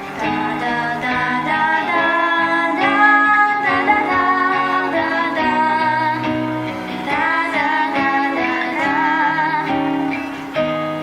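Young girls singing a slow, sad melody with vibrato over a guitar accompaniment.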